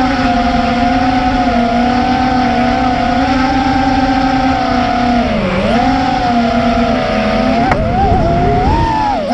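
FPV racing quadcopter's brushless motors and propellers whining steadily. The pitch dips sharply a little past halfway and wavers near the end as the throttle changes, with a brief click about three-quarters through.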